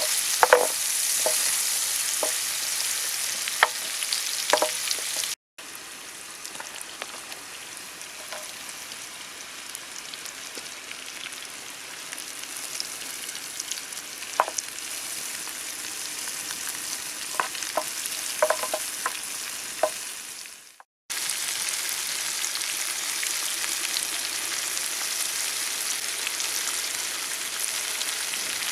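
Chopped vegetables sizzling in butter in a pan, with the clicks and scrapes of a utensil stirring them. The sizzle drops out abruptly twice, about five and twenty-one seconds in, and is quieter in between.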